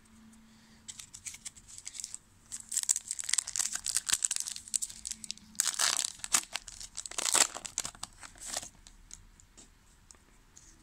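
Foil pack of 2000 Topps Season Opener football cards being torn open and crinkled by hand, a run of crackling rustles that stops a couple of seconds before the end.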